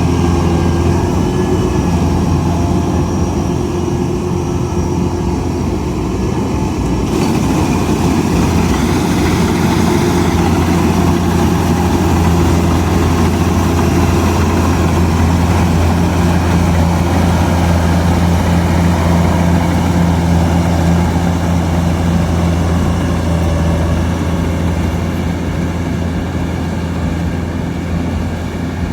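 Kubota DC-105X combine harvester running steadily with a deep, even diesel hum. About seven seconds in, a brighter hiss joins in.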